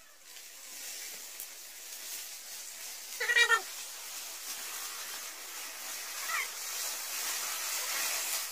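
A short, loud, wavering animal cry about three seconds in, and a fainter one a few seconds later, over a steady hiss that cuts off suddenly at the end.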